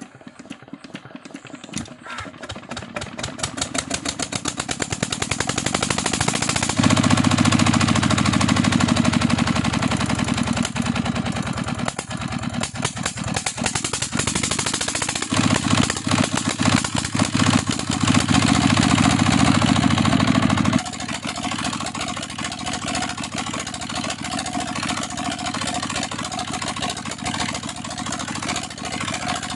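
Small single-cylinder Petter diesel engine starting: slow, even beats that quicken and grow louder over the first few seconds as it catches. It then runs fast and loud, twice for several seconds, and settles to a lower steady run about two-thirds of the way in.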